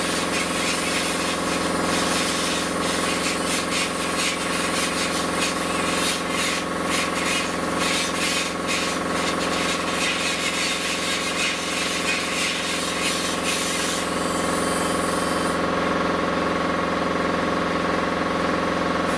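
Hand-held power tool abrading rust from sheet-metal bodywork: a steady motor whine with a rough, varying rasp as it works the metal, cutting off abruptly near the end.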